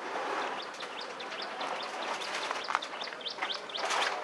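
Small birds chirping: many short, high notes in quick succession over steady background noise.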